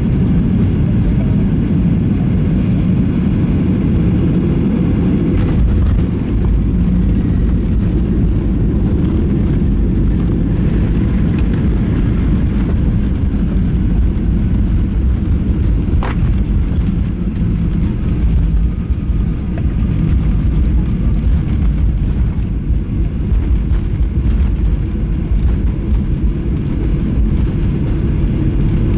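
Jet airliner cabin noise through landing: the steady roar of final approach gives way, about five seconds in, to the heavier low rumble of the wheels on the runway as the aircraft touches down and decelerates with its ground spoilers raised. A single sharp click sounds about sixteen seconds in.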